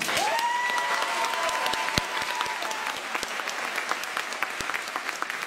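Audience applauding, with many hands clapping, after the music ends. One long high call from the crowd rises at the start and holds for about two seconds.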